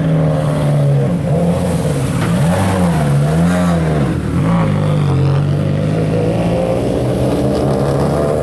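Subaru WRX STI rally car's turbocharged boxer four-cylinder engine running at low revs as the car moves slowly past and pulls away. It is blipped up and down a few times in the first few seconds, then holds a steady note.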